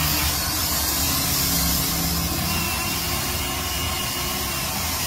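Huina remote-control model excavator running as its arm and bucket dig in mud: a steady mechanical whir with a hiss and a low hum underneath.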